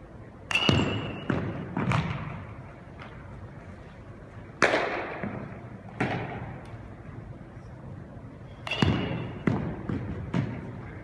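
Baseballs bouncing on a hardwood gym floor and being fielded into a glove: sharp knocks in three quick clusters, each echoing around the large gym, with a brief high squeak about a second in.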